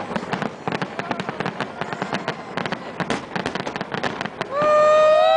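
Fireworks crackling and popping in rapid, overlapping bursts. Near the end a loud whistle rises slightly, holds for about a second, then drops in pitch.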